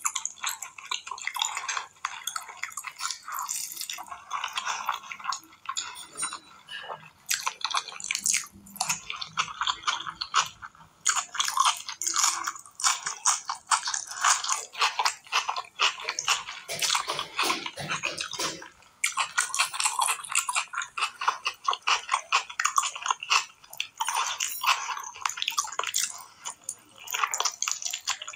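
Close-miked eating sounds of mutton curry and rice eaten by hand: wet chewing, smacking and squishing as a rapid, irregular stream of clicks, with a few short pauses.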